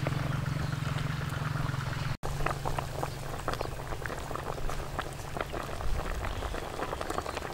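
Pot of black chicken soup boiling, with many quick, irregular bubbling pops. A steady low hum sits under the first two seconds, and the sound cuts out for an instant about two seconds in.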